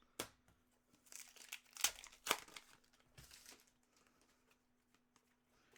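Foil wrapper of an Upper Deck hockey card pack crinkling, with cards being handled. A sharp click comes just after the start, then a run of crinkling rustles that is loudest about two seconds in and fades out after the middle.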